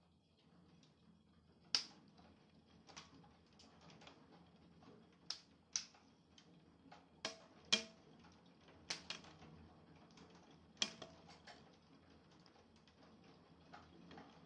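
Scattered thunderstorm raindrops tapping on a hard surface: about a dozen sharp, irregular ticks, faint overall.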